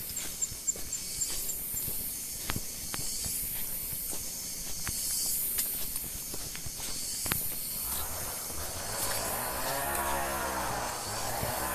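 A distant chainsaw running, its pitch wavering up and down, fades in about two-thirds of the way through. Before that there is a steady high hiss with scattered sharp clicks.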